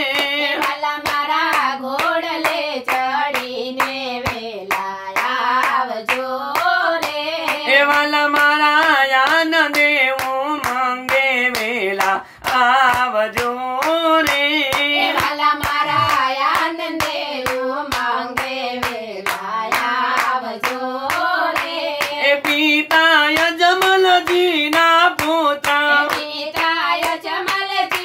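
A small group of voices singing a Gujarati devotional dhun, with hand clapping in a steady rhythm throughout. The singing breaks off briefly about twelve seconds in.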